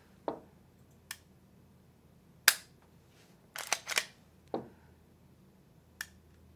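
Dry-fire clicks from an unloaded IWI Masada 9mm striker-fired pistol as its trigger is pressed and reset: a sharp snap of the trigger breaking about two and a half seconds in, a quick cluster of mechanical clicks around four seconds in, and another sharp snap near the end, with a few smaller clicks in between.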